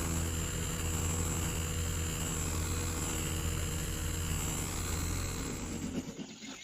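A motor running steadily, with a low hum and a thin high whine, dying away near the end.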